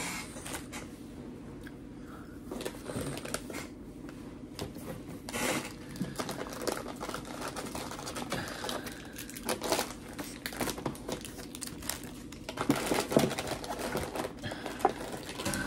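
Plastic snack wrappers crinkling and crackling as they are handled, in irregular bursts.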